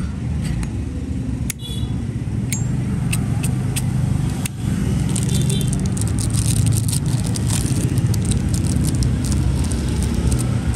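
Small sharp metallic clicks and taps of a Zippo lighter being handled, thickest in the middle stretch, over a steady low rumble.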